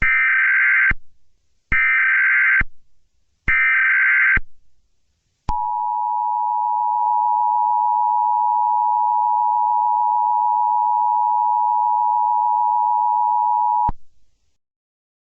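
Emergency Alert System header and attention signal announcing a severe thunderstorm warning. It starts with three roughly one-second bursts of the warbling SAME digital header data, with short gaps between them. After a pause comes a steady attention tone, held for about eight seconds, which then cuts off.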